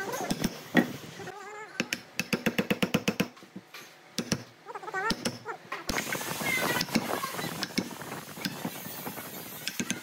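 Steel hand chisel cutting a mortise in red hardwood, with sharp knocks and crunching as it is driven in and levers out chips. A quick run of about a dozen clicks comes about two seconds in.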